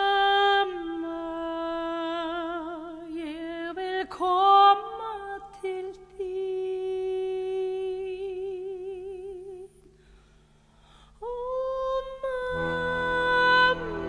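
Music: a solo voice hums a slow, wordless melody in long held notes with vibrato, breaking off briefly about ten seconds in. Near the end, an instrumental accompaniment comes in beneath the voice.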